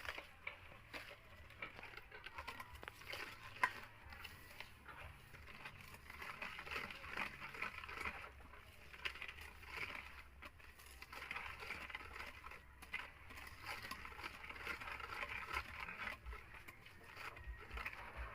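Electric hand mixer running at low speed, its beaters creaming butter and sugar in a bowl with a continuous rapid rattling and scraping over a low motor hum.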